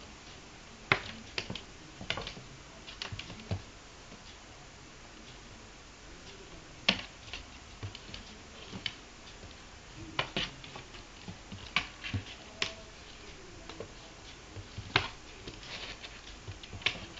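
A kitten's paws and claws tapping and scratching on cardboard boxes as it scrambles after its own tail: irregular sharp clicks and knocks, a few louder than the rest.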